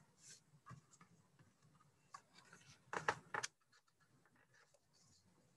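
Mostly quiet, with a brief rustle of a stiff picture-book page being turned about three seconds in.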